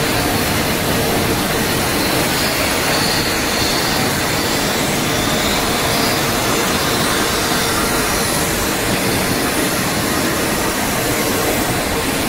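Steady machinery din of a running puffed-snack production line: conveyor drives, motors and a rotating flavouring drum, an even noise with a faint steady hum underneath.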